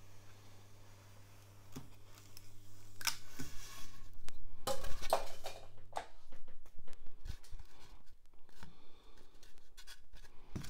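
Steady electrical hum from a Proxxon Thermocut hot-wire foam cutter while its wire is switched on, cutting off about six seconds in. Over it, a block of Styrodur foam scrapes and rustles as it is pushed across the cutter's table, and then the block gives scattered knocks and rustles as it is lifted and turned in the hands.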